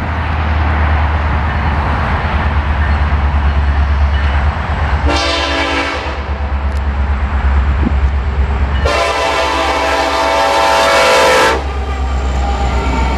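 Norfolk Southern diesel locomotive's air horn sounding for the grade crossing: a short blast about five seconds in, then a long, loud blast about nine seconds in, the close of the long-long-short-long crossing signal. Under it the steady low rumble of the locomotive's diesel engine, which grows as the locomotive passes near the end.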